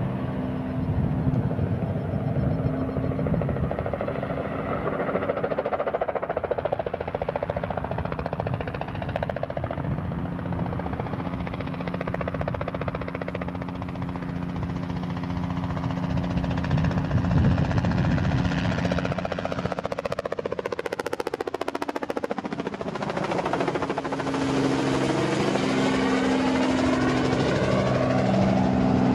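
Robinson R44 helicopter flying low: a steady drone of rotor and piston engine, its pitch falling as it sweeps past about twenty seconds in, then growing louder near the end.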